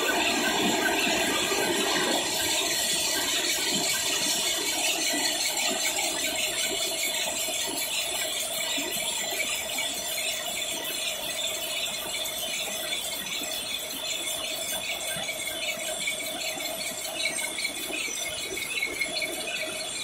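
Several rapier looms with electronic jacquard heads running together: a steady, dense mechanical clatter with a constant high ring over it.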